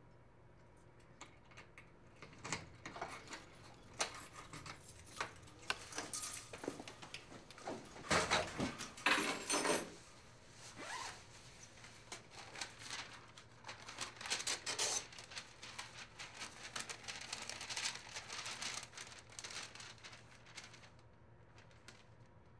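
Rustling and rasping handling noise from a nylon jacket and paper being handled at a fax machine. It comes in uneven bursts, with the two loudest rasps about eight and nine seconds in.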